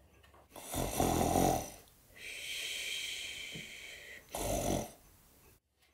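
A person imitating snoring: a short rasping snore, a long whistling breath out, then a second snore.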